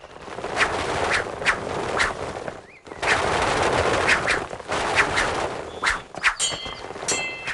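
Sword-fight sound effects: a dense rushing whoosh of rapid blade swings, with sharp swishes several times a second and a brief break about three seconds in. Near the end come ringing metal clangs of swords striking.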